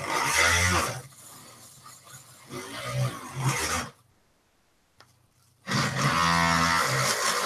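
Dremel rotary tool running and sanding a cork float, its pitch wavering as it bites into the cork. It stops a little after halfway for about two seconds, then starts again.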